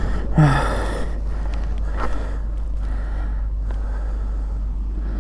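Steady low rumble of wind buffeting the microphone, with one heavy, breathy exhale about half a second in.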